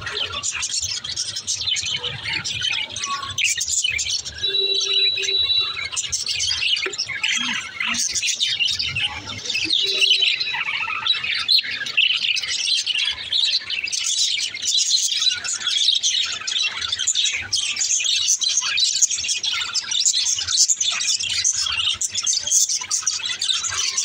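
A flock of budgerigars chattering, many overlapping chirps and warbles with no break.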